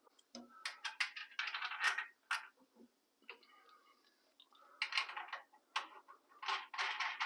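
Light metallic clicks and clinks of hardware as a tubular upper control arm is worked by hand onto its frame mounting studs, metal parts knocking against each other. The clicks come in scattered clusters, with a lull of about two seconds in the middle.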